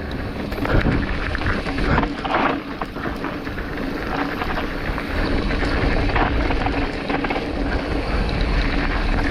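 Mountain bike running fast down a dirt trail: wind rushing over the microphone and tyres rumbling on the ground, with scattered clicks and knocks as the bike rattles over bumps.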